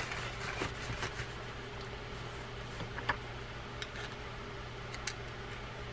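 Faint, scattered clicks and short scrapes of a small metal pick and a paper towel working over a fishing reel's main gear, clearing out old hardened grease loosened with penetrating oil. A steady low hum runs underneath.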